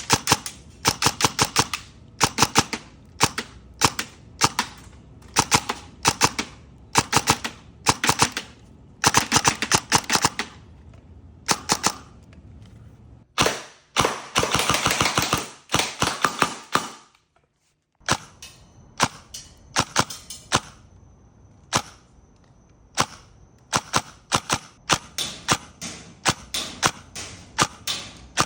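Airsoft electric AKS-74UN rifle (LCT, with a brushless motor and a suppressor) firing on full auto, mostly in short rapid bursts with one longer burst of about three seconds a little past halfway.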